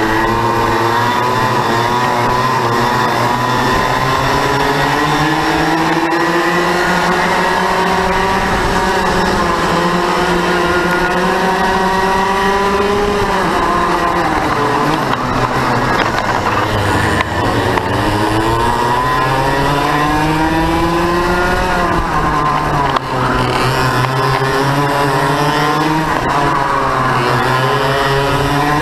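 Yamaha KT100 two-stroke kart engine racing, heard from on board the kart: the revs climb steadily for long stretches, then drop off sharply twice before climbing again.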